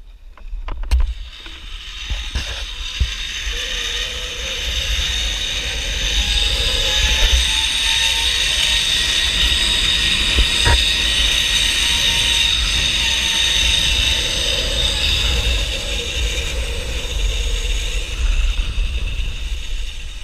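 Zip-line trolley pulleys rolling along the steel cable: a whirring whine that rises in pitch and builds over the first few seconds, then holds steady, with a low rumble of wind on the microphone underneath.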